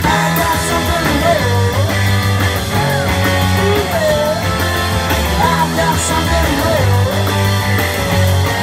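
Live garage rock band playing loudly: electric guitars, drums and keyboard, with a sung melody over them.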